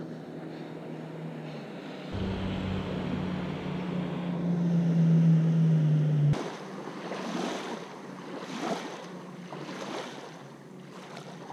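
Motorboat engine humming steadily, growing louder for about four seconds and then cutting off abruptly. It is followed by small boat-wake waves washing onto the shore in several surges.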